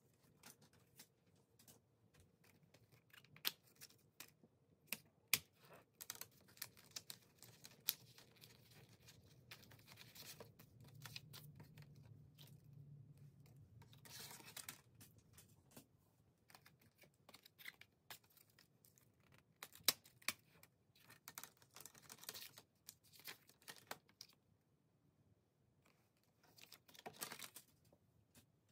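Plastic CD jewel cases being handled and opened, giving scattered sharp clicks and snaps, with a few short stretches of paper booklets and photocards rustling and sliding. Quiet overall.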